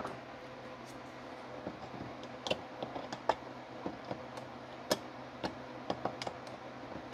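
Irregular light metallic clicks and ticks as a wide flat blade is worked in the needle-and-seat fitting of a Marvel Schebler carburetor body, threading the seat in. A faint steady hum runs underneath.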